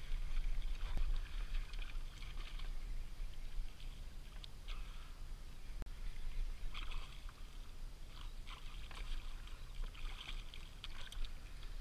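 Water sloshing and splashing around a plastic kayak hull, in short irregular bursts over a steady low rumble.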